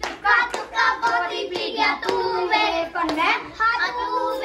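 Young girls singing a Punjabi folk song together while clapping their hands in a steady rhythm, the sharp claps cutting through the singing.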